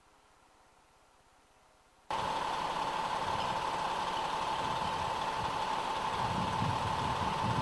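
Near silence for about two seconds, then, abruptly, a truck engine idling with a steady high-pitched tone over the rumble.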